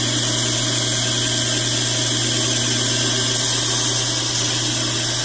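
Belt surface grinder running steadily with a steady motor hum, its fine abrasive belt grinding a hardened steel knife blade as the table carries the blade beneath it. This is a light truing pass that throws plenty of sparks but removes very little metal.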